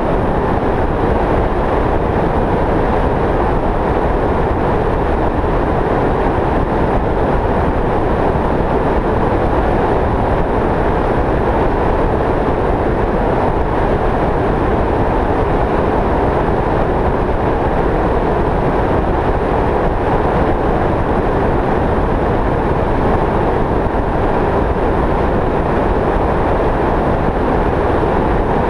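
Steady road noise of a vehicle driving at highway speed: tyres on asphalt and wind, with no change in pitch or level.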